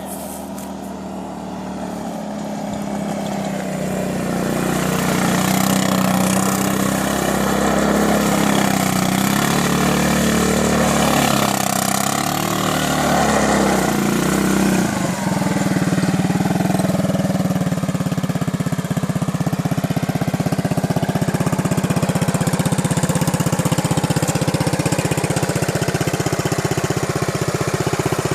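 250cc automatic ATV engine running, growing louder over the first few seconds and rising and falling in pitch, then settling into a steady idle about halfway through.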